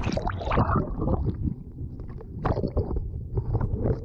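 Breaking surf splashing and sloshing around a kayak hull, with the camera at the waterline. Irregular splashes, the biggest at the start, about two and a half seconds in and near the end, over a steady low rumble of water on the microphone.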